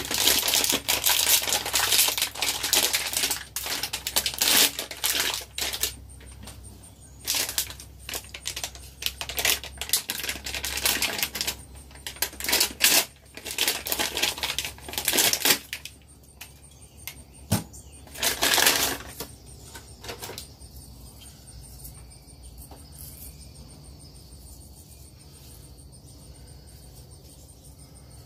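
Plastic packaging crinkling and rustling in dense bursts as it is handled and opened, for about the first sixteen seconds, then a single sharp click and a last burst of rustling before it goes quiet.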